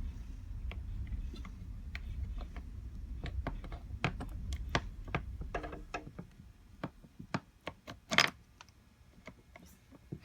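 Small metal parts of a Marks mortise lock clicking and tapping as they are handled and taken out of the opened lock body. The clicks are sharp and irregular, with one louder, longer clatter about eight seconds in.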